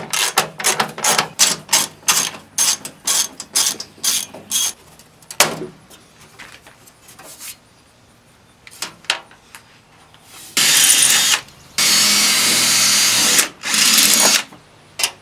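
A quick run of sharp clicks or taps, about four a second, for the first five seconds. Then a cordless drill bores a mounting hole through a metal inner fender panel in three bursts near the end, the middle one the longest.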